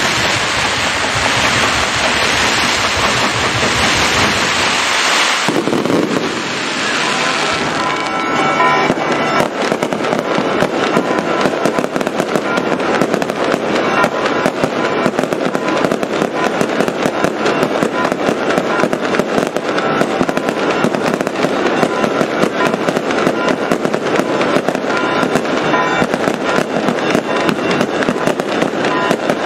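Fireworks: a dense rushing hiss as rockets streak upward for the first five seconds, then from about eight seconds in a rapid, unbroken stream of sharp bangs and crackles from bursting shells and firecrackers.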